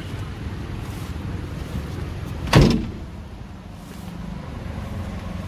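The steel driver's door of a Force Traveller van is slammed shut once, a single sharp bang about two and a half seconds in.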